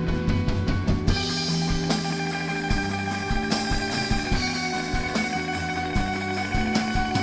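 Live rock band playing: sustained electric guitars over a drum kit, the sound filling out with more cymbal wash about a second in.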